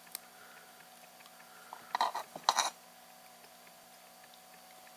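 Two short crinkly crunches about two and two and a half seconds in, from the plastic and tape parts of a laptop battery pack being handled and pulled apart, over a low steady hum.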